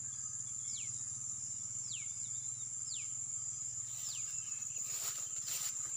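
Steady high-pitched chirring of crickets in the field. Over it, a bird repeats a short falling whistle about once a second.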